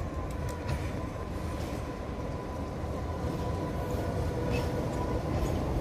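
CFR LDH diesel-hydraulic locomotive approaching slowly, its diesel engine running with a steady low rumble and a whine held at one pitch, the sound growing slightly louder near the end. A few faint clicks come through.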